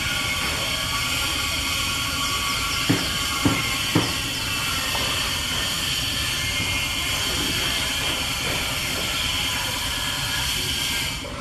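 A steady, high-pitched buzzing drone, with three sharp clicks about three to four seconds in; the drone cuts off just before the end.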